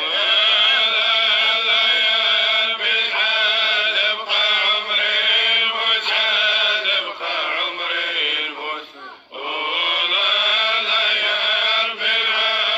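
A solo male voice chanting in long, drawn-out, wavering lines, with a short break about nine seconds in.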